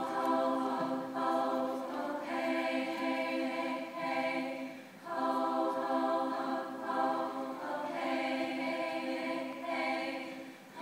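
Women's a cappella group singing held chords in close harmony, breaking off briefly about halfway through and again near the end.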